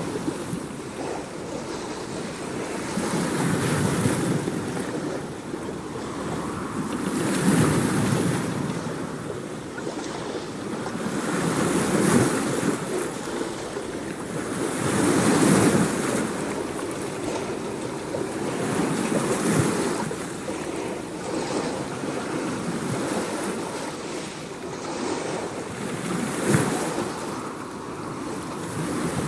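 Ocean surf: a rushing wash of waves that swells and fades every few seconds.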